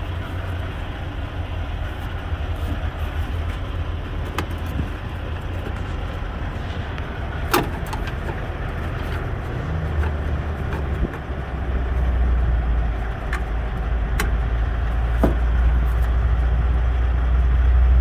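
Steady low rumble of idling vehicle engines, growing louder about two-thirds of the way through, with a few sharp clicks and knocks.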